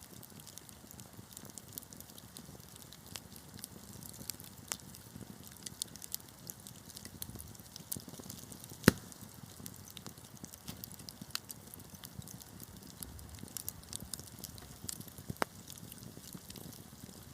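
Wood fire burning in a fireplace: a low steady hiss of flames with frequent small crackles, and one loud pop about halfway through.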